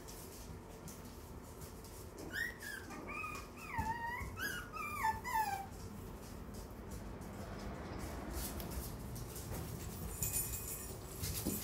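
Puppy whimpering, a run of short high whines that rise and fall a couple of seconds in. A brief rustling comes near the end.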